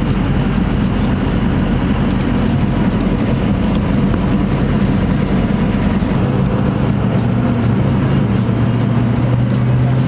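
A car or truck driving: a steady engine drone with road noise, the engine note shifting slightly lower in the second half.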